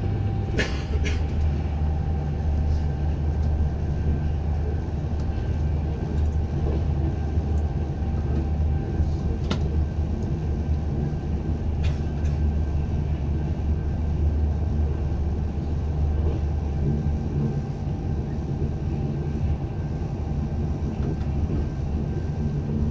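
Passenger train running at speed, heard from inside the carriage: a steady low rumble of wheels on rail, with a few sharp clicks.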